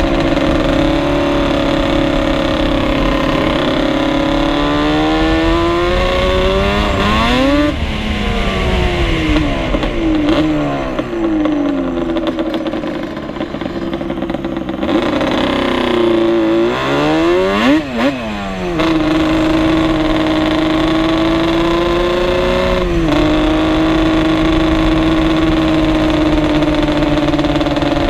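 Ported two-stroke sport quad engine running steadily at speed. Its pitch slides down and back up twice, once about a quarter of the way in and again a little past halfway.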